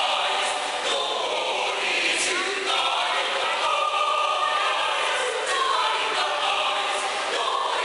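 Mixed choir of men's and women's voices singing together under a conductor, holding sustained chords that shift from one to the next.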